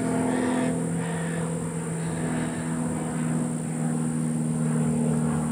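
A steady low engine drone with a slight shift in pitch partway through.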